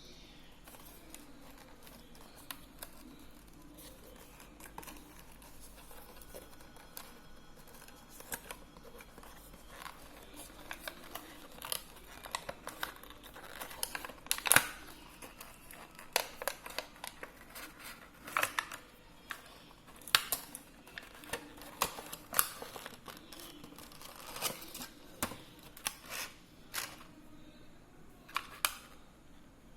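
Product packaging being handled and opened by hand: scattered rustles and sharp clicks that grow busier about a third of the way in, the loudest a single sharp click near the middle.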